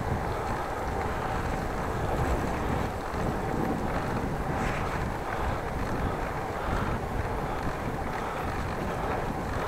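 Wind rushing over the microphone on a moving bicycle, a steady low buffeting rumble with a faint steady hum running under it.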